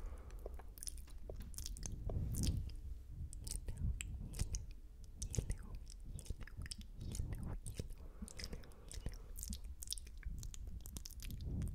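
Wet, close-miked mouth sounds: irregular sticky spit clicks and lip smacks as fingers are licked for ASMR 'spit painting'.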